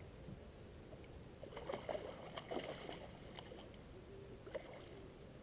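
Kayak paddle stroke in calm water: the blade dipping and pulling, with small splashes and drips over a couple of seconds in the middle, and one more short splash or knock a little later.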